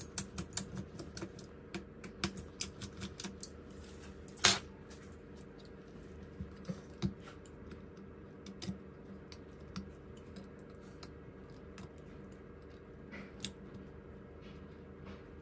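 Small metal tools clicking and tapping against phone parts: a quick run of light clicks, one sharper click about four and a half seconds in, then sparser taps, over a faint steady hum.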